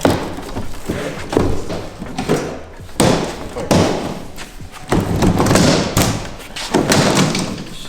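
A run of thumps and knocks with scraping in between as a tire machine's large shipping box is pulled apart, its tabs bent flat and its sides worked off; a longer scrape comes about two thirds of the way in.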